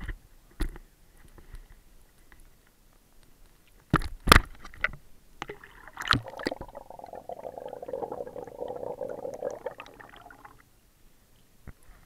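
Water sloshing and gurgling against a camera held at the water's surface, with sharp knocks about four seconds in and a steadier gurgling wash from about six to ten seconds.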